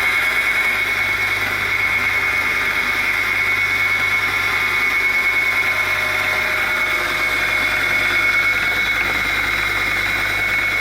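Electric motor of a homemade belt grinder running steadily at speed, with a constant high whine over a low hum.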